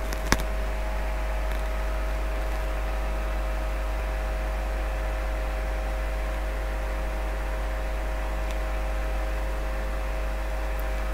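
A single sharp switch click just after the start, then a steady electrical hum with fan noise from the powered electronics.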